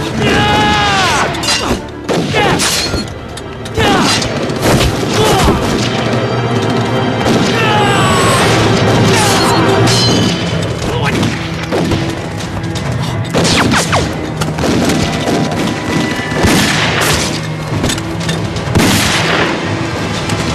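Action-film fight soundtrack: repeated pistol shots and heavy impacts over dramatic background music.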